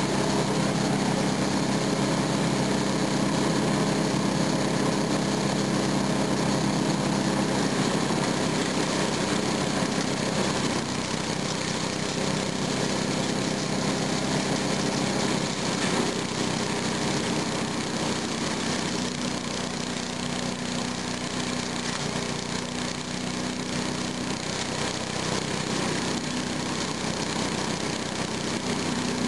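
Small gasoline engine of a Kemp shredder-chipper running steadily at working speed while brush and leaves are fed into its hopper. The note eases slightly partway through.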